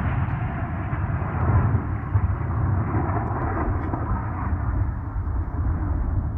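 Explosion sound effect's deep rumbling aftermath, fading slowly as its higher rumble dies away.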